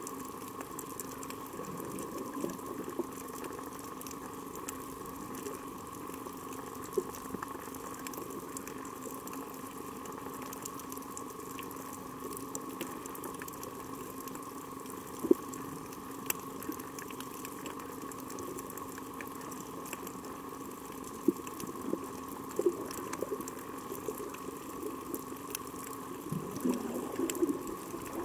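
Underwater coral-reef ambience: scattered sharp clicks and crackles, typical of snapping shrimp, over a steady hum and water noise. A louder irregular rumble comes in near the end.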